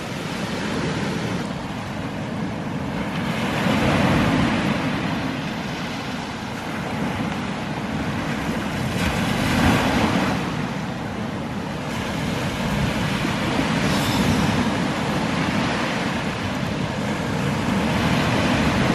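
Surf washing onto a sandy beach: a steady rush of breaking waves that swells and eases every few seconds.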